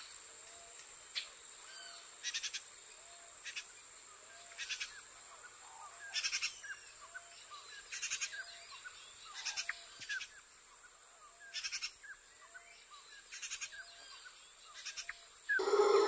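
Rainforest ambience: a steady high insect drone with short buzzy insect pulses every second or two, a soft low call repeating about once a second, and scattered bird chirps. A louder sound comes in just before the end.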